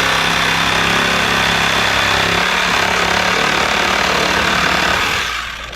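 Power saw running steadily as it cuts through PVC conduit, stopping about five seconds in.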